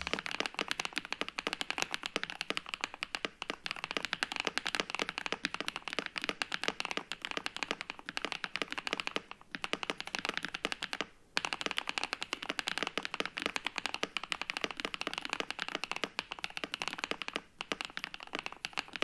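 Fast, continuous typing on an Epomaker Shadow X 70% mechanical keyboard with a plastic case, modded with three layers of tape on the back and car sound-dampening material in the bottom. It is a dense patter of keystrokes with brief pauses about nine and eleven seconds in.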